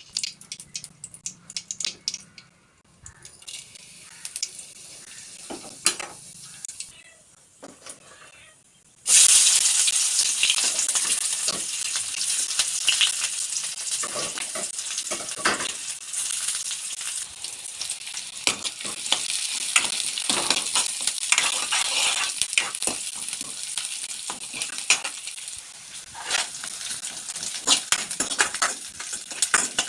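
Food frying in hot oil in a pan. A loud sizzle starts suddenly about nine seconds in and keeps going, with the clicks and scrapes of a utensil stirring. Before that there are only scattered clicks and clatter of kitchen utensils.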